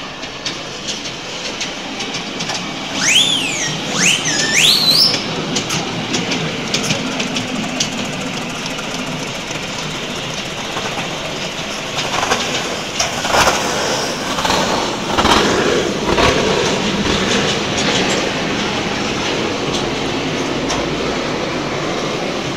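Steam engine running, a loud steady mechanical noise full of clanks and ticks, with a few brief high-pitched swooping sounds about three to five seconds in.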